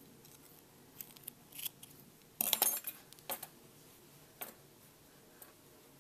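Crochet hook and yarn being worked by hand: a few short, soft clicks and rustles, the loudest cluster about halfway through, while a slip stitch is joined and the yarn fastened off.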